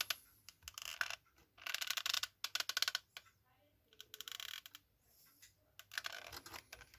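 Rapid clicking and scratching in short bursts from hot-gluing a pipe into a metal jar lid: the glue gun and the lid being handled.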